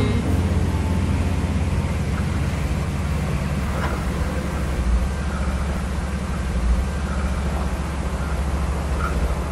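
Railway snowplow train ploughing through deep snow: a steady low rumble under a rushing hiss of thrown snow.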